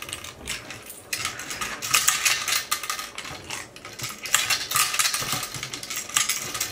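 Plastic Connect Four checkers being dropped quickly into the upright grid, making a fast, irregular clatter of light plastic clicks.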